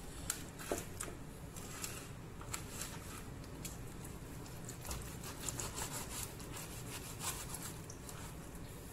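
A kitchen knife slicing through a lump of beef fat on a cutting board: soft rubbing, scraping strokes with scattered light clicks of the blade.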